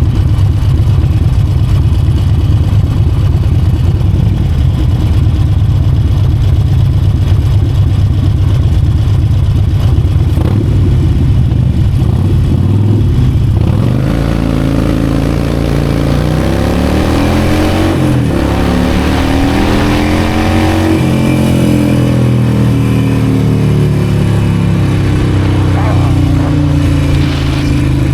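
Harley-Davidson Forty-Eight's air-cooled V-twin under way: a steady low rumble for the first half, then revving up with its pitch climbing, a brief dip about two-thirds through, a second climb, and a slow fall as the bike eases off. Heard from a mic inside the rider's helmet.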